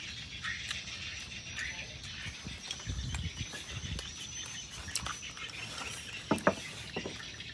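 Outdoor rural ambience: birds chirping and a steady high insect drone, with a few sharp clicks and taps a little past the middle.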